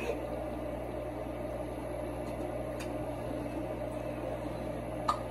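A steady low mechanical hum, with a faint tick near the end.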